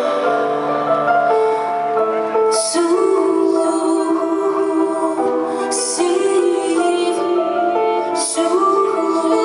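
A woman singing a slow, tender song over piano accompaniment, held notes with sharp sung 's' sounds about two and a half, six and eight seconds in.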